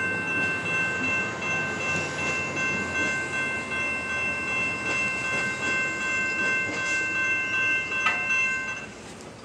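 Railroad crossing warning bell ringing steadily over a low rumble while the gate arms rise after the train has passed. A sharp knock comes about eight seconds in, and the bell stops just after it, near the end.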